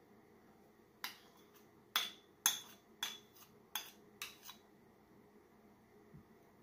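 Metal spoon clinking and scraping against a small ceramic bowl as melted butter is scraped out into the mixing bowl: about eight sharp clinks between one and four and a half seconds in.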